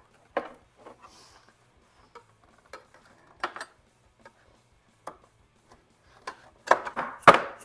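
Plastic interior trim panel being handled, with scattered light knocks and clicks, then a few sharp raps near the end as a hammer drives a putty knife under a glued-on bracket to break its plastic welds.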